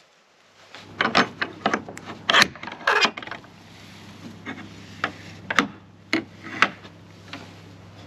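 A wooden garden gate being unlatched and opened: a quick run of sharp metal clicks and rattles from its bolt and latch, then a few single knocks a couple of seconds later.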